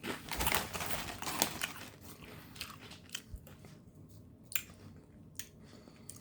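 A person biting into and chewing thick kettle chips close to the microphone: a burst of loud crunching for the first second or two, then quieter chewing with a few sharp crunches.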